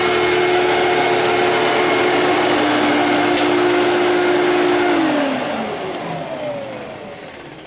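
Fantom Thunder upright vacuum cleaner running steadily on carpet, then switched off about five seconds in, its motor whine falling in pitch and fading as it winds down.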